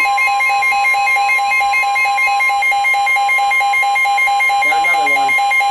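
Emergency weather-alert tones: a steady alarm tone, typical of the NOAA Weather Radio warning alarm, sounding together with a fast beeping alarm. Together they signal that a new warning is about to be broadcast. A voice is heard briefly about five seconds in.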